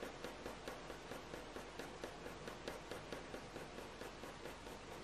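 Staedtler Mars Lumograph graphite pencil scratching on hot-press watercolour paper in short, quick strokes, about four or five a second, as fur is hatched in.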